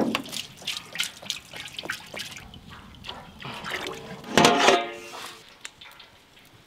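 Coconut oil poured in a thick stream from a metal tin into a wide metal uruli, splashing and glugging, loudest about four and a half seconds in, then dying away.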